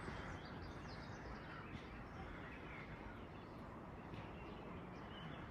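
Outdoor street ambience: a steady low background hum with small birds chirping over it in short, quick calls.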